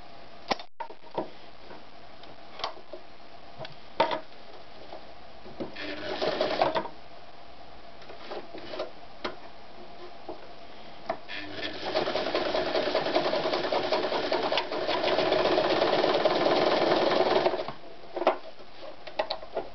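Janome Gritzner 537 sewing machine stitching through a thick layered strap: a short run of sewing about six seconds in, then a longer run of about six seconds that gets louder partway through. Scattered clicks and knocks between the runs as the strap and machine are handled.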